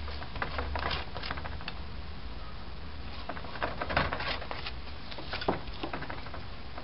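Metal spoon spreading oil over a laccha paratha in a non-stick frying pan: soft scattered scrapes and light taps, a little stronger about four seconds in, over a steady low hum.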